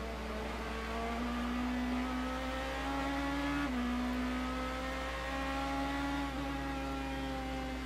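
BMW M3 GT race car's V8 engine heard onboard under hard acceleration, its note rising through the revs, dropping sharply with an upshift about halfway through, then climbing again in the next gear.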